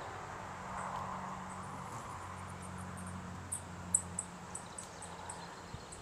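Hummingbird at a feeder: a run of short, very high chips, about two or three a second and loudest in the middle, over a low steady hum of its wings that fades out about four seconds in. Light wind on the microphone.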